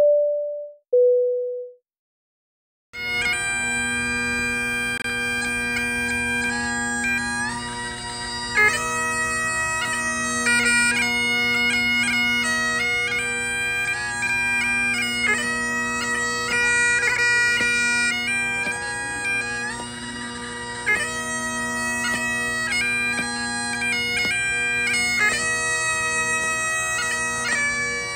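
Two short falling tones, then after a moment of silence a Great Highland bagpipe starts playing a tune, the chanter melody moving over the steady drones.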